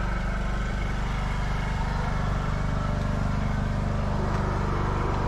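Steady low drone of an engine running at idle, even throughout, with one faint click about four seconds in as the fridge door is handled.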